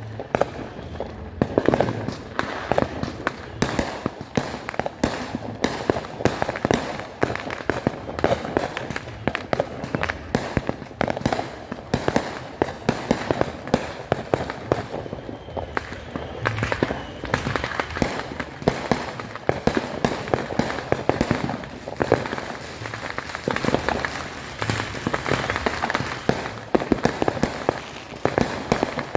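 Fireworks and firecrackers going off in a continuous barrage of sharp bangs and crackling pops, many per second.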